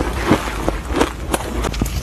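Crunchy frozen ice being chewed: a quick run of short, sharp crunches, about three a second.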